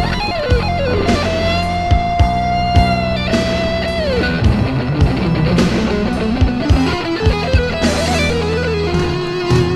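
Rock instrumental music led by electric guitar, with long sustained notes that bend and slide in pitch over bass and a drum beat.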